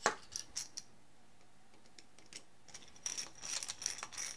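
Light clicks of a hex driver and small metal fasteners against a carbon-fibre quadcopter frame during the first second. After a quiet stretch, about three seconds in, a fast run of light clicks and rattles with a thin high tone begins as the hardware on the arm is worked.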